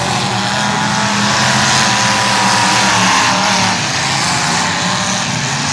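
Many demolition derby cars' engines revving hard together as the cars pull away at the start of a heat, a dense, steady din.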